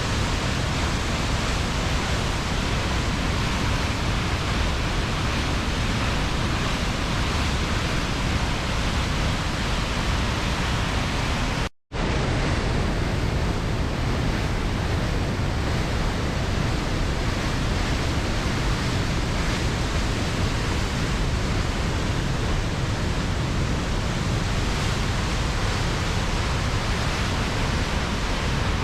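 Reekie Linn waterfall in spate after heavy rain: a very large volume of water pours over the falls and lands in the gorge below, making a loud, steady roar. The sound cuts out for a split second about twelve seconds in, then carries on unchanged.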